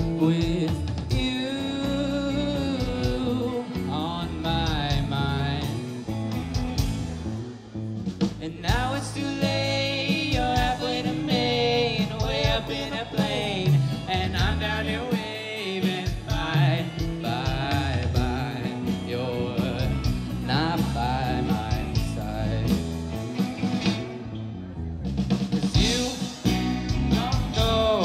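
Live rock band playing a song: lead vocals sung into a microphone over electric guitars and a drum kit.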